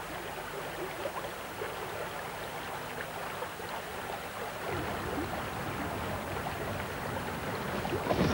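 Steady outdoor background noise of flowing river water and wind, with low wind rumble on the microphone picking up about five seconds in.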